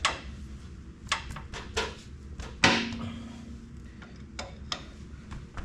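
Hand tools clinking and tapping on metal in a string of short knocks, with one sharper strike about two and a half seconds in that rings briefly.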